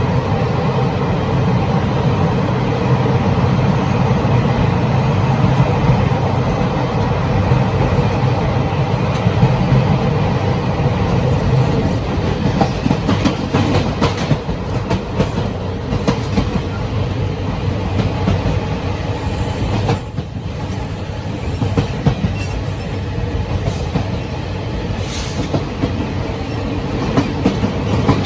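Gangway connection between coaches of a Taiwan Railway Chu-Kuang express train running: a steady loud rumble and rattle, with sharp wheel clicks and knocks coming more often from about halfway through.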